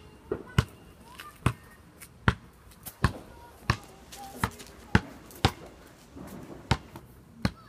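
Firecrackers going off one after another in a street: about a dozen sharp pops at uneven intervals, roughly one or two a second.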